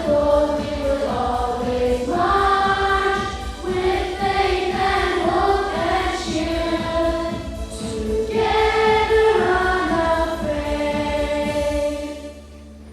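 Students singing the school song together as a choir over instrumental accompaniment with a steady beat. The song ends about twelve seconds in.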